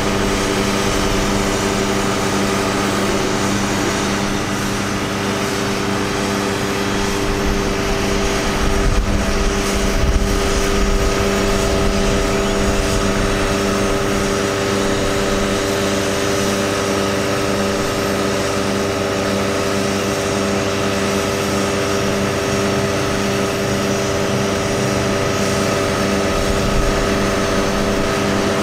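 Truck engine running steadily at a fixed speed, with a steady whine, driving the hydraulics of a Palfinger PK32080 articulating crane as its boom moves.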